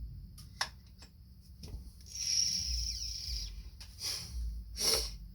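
Handling noises while searching among tools: a few light clicks, a rubbing hiss a couple of seconds in, and a short louder rush near the end.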